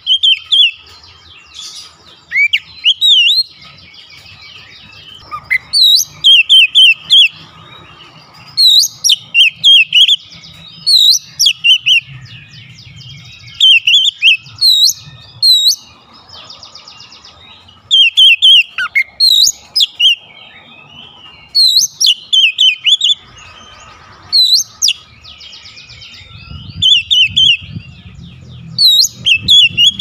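Oriental magpie-robin singing loudly: short phrases of rapid, sharp, down-slurred whistled notes, repeated every second or two with brief pauses between.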